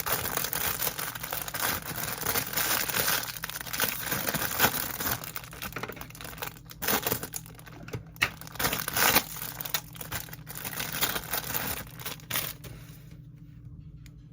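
Dense, irregular crinkling and crackling handling noise, with a few sharper crackles, dying away near the end.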